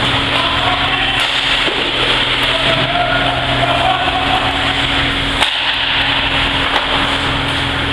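Indoor ice hockey game ambience: a steady hiss with a constant low hum, skates on the ice, a few sharp clacks of sticks and puck, and faint shouts.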